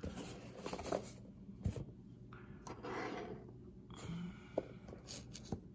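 Trading card packs being handled and slid about on a tabletop: soft foil-wrapper rustling with a few small taps, swelling briefly about halfway through.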